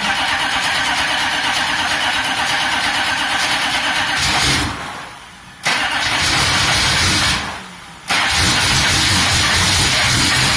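A GM 6.5-litre turbo-diesel V8 being cranked by its starter for its first start: three long bursts of cranking with short breaks about five and eight seconds in, and on the last try it begins to fire roughly. The freshly rebuilt fuel system still has air in the lines, which the owner blames for the rough running.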